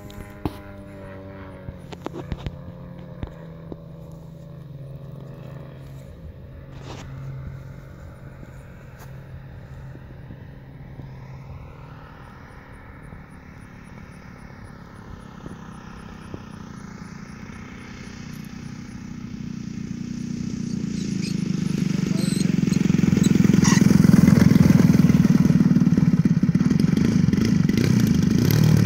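DLE twin-cylinder gasoline engine of a giant-scale RC Super Decathlon running, faint and steady while the plane is far off. Over the last ten seconds it gets much louder as the plane lands and rolls along the grass close by.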